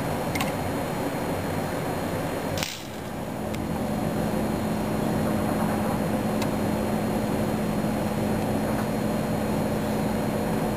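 Steady background hiss of room noise, broken by one sharp click a little under three seconds in. After the click a steady low hum comes up.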